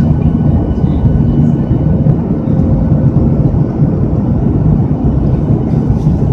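Jet airliner cabin noise in flight: the steady roar of the engines and rushing air heard from a window seat over the wing, with a faint steady hum running through it.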